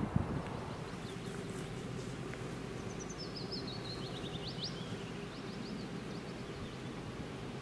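A songbird sings a quick run of chirps that falls in pitch, about three seconds in, over a steady low outdoor rumble. A short thump comes right at the start.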